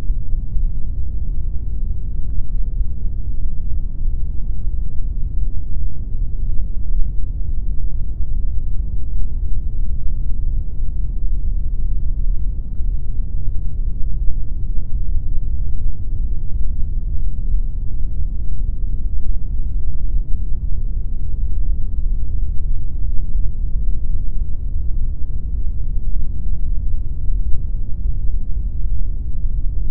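Steady synthetic pink noise: a constant, even, deep hiss with most of its weight in the low end and almost nothing in the highs, unchanging throughout.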